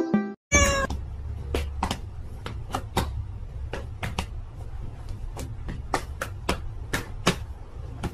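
A cat's short meow about half a second in, then a steady low hum with a string of sharp clicks or taps, about two a second.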